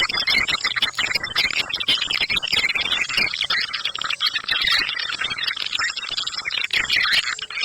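Swiftlet sound call of the "ceklok" type: a recording of swiftlets twittering, a continuous dense run of rapid high chirps and clicks, the kind of lure played to draw swiftlets into a nesting house.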